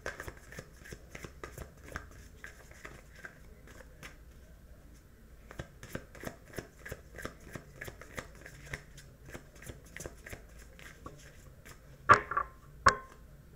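A deck of oracle cards being shuffled by hand: a quick, uneven patter of small card clicks, with two louder snaps near the end.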